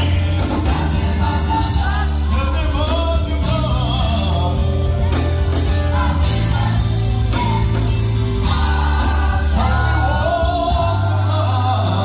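Gospel worship music: a choir singing over a band with a heavy bass line.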